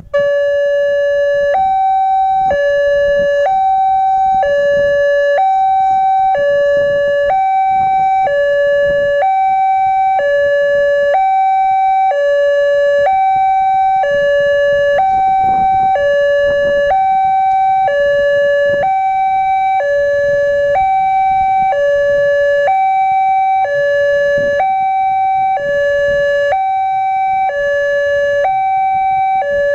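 Railway level crossing's electronic warning siren coming on abruptly and sounding a loud two-tone hi-lo alarm, switching pitch about once a second. It signals that the crossing is closing for an approaching train.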